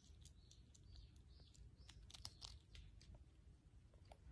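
Faint crackling clicks of a galago (bushbaby) nibbling a bit of food held in its hands, thickest about two seconds in, over a low steady rumble.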